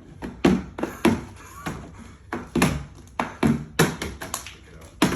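Plastic water bottles being flipped and landing, a quick irregular series of about a dozen taps and thuds on a hard surface.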